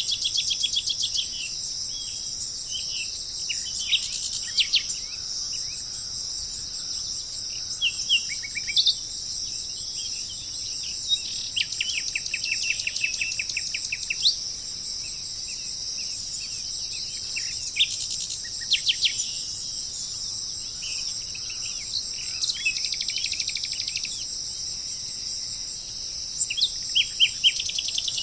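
Songbirds singing, with rapid trills and short chirps coming and going, over a steady high drone of insects.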